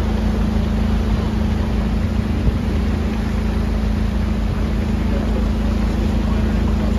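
A boat engine running at a steady speed, giving an even hum over a low rumble.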